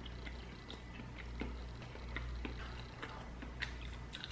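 A man chewing a mouthful of a whole grain roll pocket filled with rice, beans, corn and cheese: faint, irregular soft mouth clicks and smacks.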